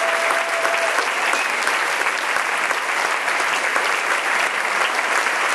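Audience applauding steadily: a dense, even mass of hand claps.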